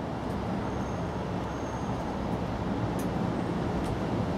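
Steady low outdoor background rumble, with a faint high thin tone early on and a couple of faint ticks near the end.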